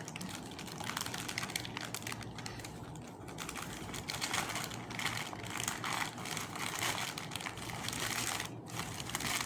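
Packaging of an online parcel being handled and worked open by hand: irregular crinkling and rustling with quick small clicks and scrapes.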